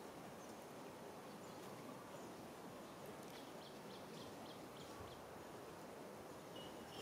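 Quiet outdoor ambience: a faint steady low hiss, with a short run of faint high chirps a little past midway and a thin steady high tone starting near the end.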